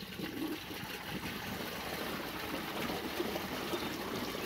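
Kohler Wellworth toilet flushing: tank water rushing steadily out through the AquaPiston flush-valve canister, a fast drain of the tank.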